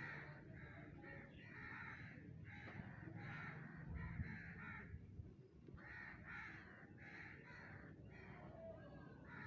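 Crows cawing, a string of short harsh caws about one a second with a brief pause midway.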